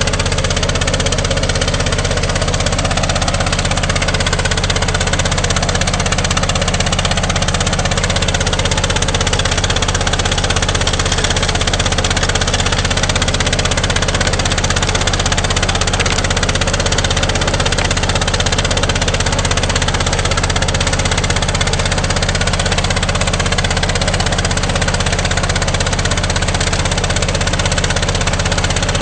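A 2½-inch gold dredge's engine and pump running steadily, with water gushing and churning in a bucket classifier fed by the dredge hose.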